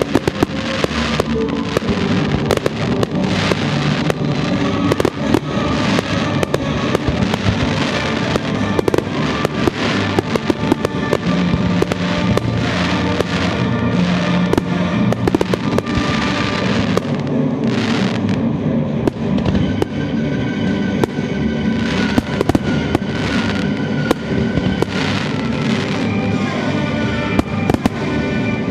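Aerial fireworks bursting in quick, irregular succession, many sharp bangs and crackles, with music playing underneath.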